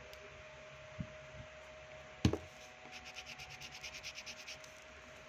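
A small knock about a second in, then a louder thump a little after two seconds, followed by quick back-and-forth strokes of colouring on paper, about nine a second, for a second and a half.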